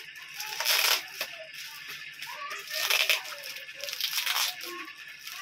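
Clear plastic packaging crinkling and rustling as it is handled and pulled open by hand, with louder bursts about one second in and about three seconds in.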